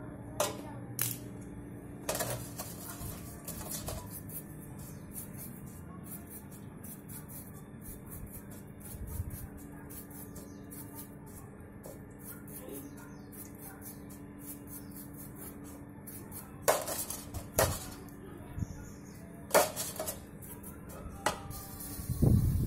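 Bicycle bearings being washed by hand in a metal tin of cleaning fluid: scattered sharp clinks of metal knocking against the tin, a few near the start and a cluster near the end, over a faint steady hum.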